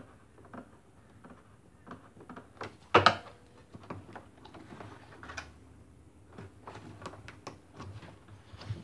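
Hands working a rubber hose onto its fitting on a washing machine's plastic tub: scattered clicks, light knocks and rubbing of rubber on plastic, with one sharp louder knock about three seconds in.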